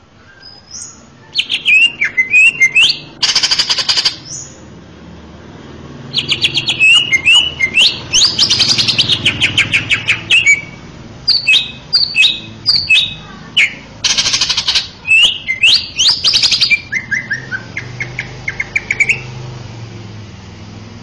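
Male cucak ijo (green leafbird) singing a loud, varied song of sliding whistles, chattering notes and fast buzzy trills, in phrases with a short pause about five seconds in; the song trails off near the end.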